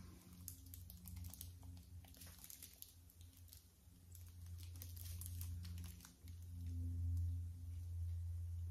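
Biting into and chewing a foil-wrapped tortilla wrap, with faint crinkling of the aluminium foil and small crunches, over a steady low hum.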